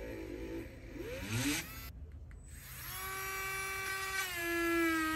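HOTO cordless rotary tool drilling into dense Australian hardwood. Its motor whine wavers under load, rises briefly and cuts out about two seconds in, then starts again about a second later as a steady whine that dips slightly in pitch just after four seconds. The tool struggles to drill the hardwood.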